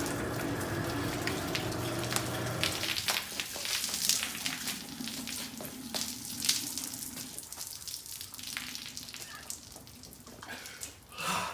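Electric garage door opener running with a steady hum for about three seconds, then a crackling, sizzling noise with scattered sharp clicks and a fainter steady tone.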